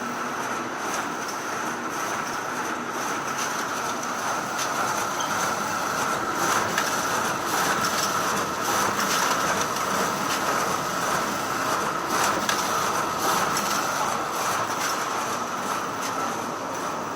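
Photocopier running: a steady mechanical whir with scattered faint clicks, swelling slightly in the middle.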